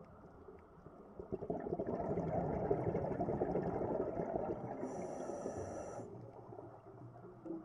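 Scuba diver breathing out through a regulator underwater: a rush of bubbling and crackling swells in about a second and a half in and fades after about four seconds, with a brief high whistle near its end.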